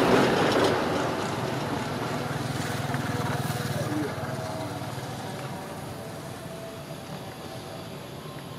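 A vehicle passing by, loudest at the start and fading away over several seconds.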